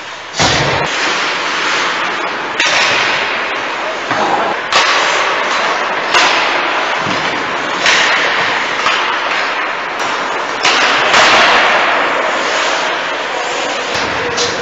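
Ice hockey play in an echoing rink: a string of sharp cracks every second or two as the puck and sticks strike the boards and ice, each ringing out in the arena's echo over a continuous noisy background.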